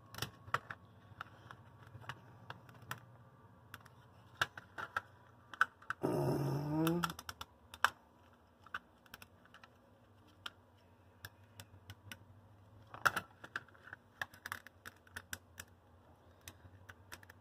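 Scattered light plastic clicks and taps as the HO-scale locomotive's plastic shell and frame parts are handled and pried apart, with a quick cluster of clicks about thirteen seconds in. About six seconds in comes one louder pitched sound lasting about a second.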